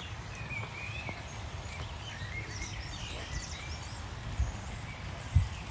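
Birds singing in the trees: many short chirps and warbling phrases over a steady low rumble, with a soft thump near the end.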